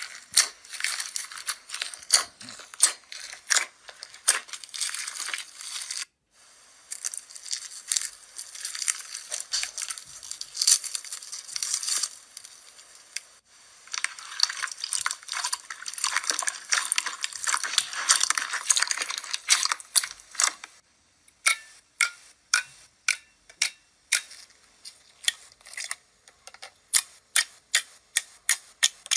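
Slime being squeezed and pressed by hand, making a dense crackling, crinkling sound that breaks off twice. Later it changes to a series of separate sharp clicks and pops, about two a second, as the slime is pressed.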